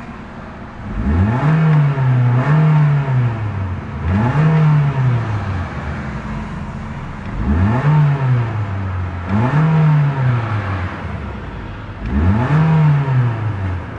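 2011 Mitsubishi Lancer Sportback ES's 2.0-litre inline-four revved in park, about six quick blips, each rising from idle, holding flat at the top and falling back. The revs top out at the rev limiter, around 4,500 RPM.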